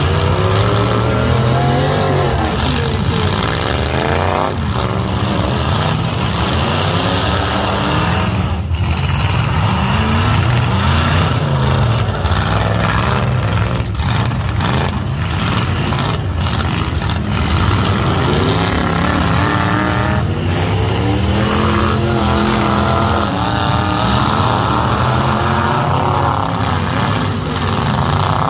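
Several full-size pickup truck engines revving hard during a demolition derby, their pitch rising and falling over and over as the trucks accelerate and ram one another.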